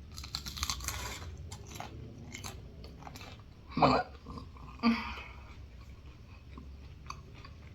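A person chewing food close to the microphone, with many small mouth clicks, and two brief louder mouth or throat sounds about four and five seconds in.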